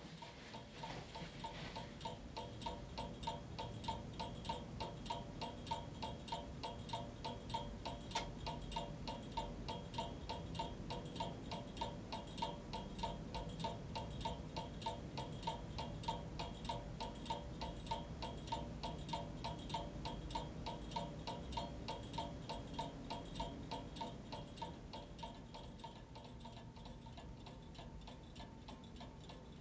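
Winterhalder & Hofmeier brass lantern clock ticking steadily and evenly, growing somewhat softer near the end.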